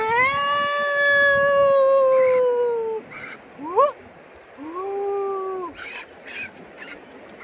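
An animal howling: one long call of about three seconds that sags slightly in pitch, then a short rising yelp and a second, shorter howl about a second long.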